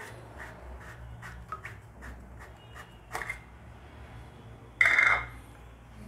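Hands handling the plastic body of an instant electric water heater tap: a run of light, evenly spaced scraping clicks, a short rasp about three seconds in, and a louder half-second rush about five seconds in.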